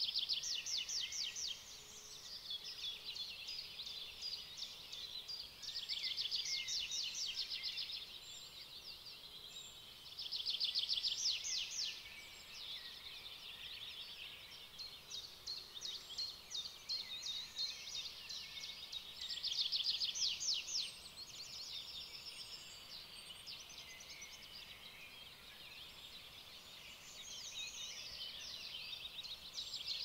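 Small songbirds singing: fast, high trilled phrases of a second or two each, repeated every few seconds, with quieter chirps between.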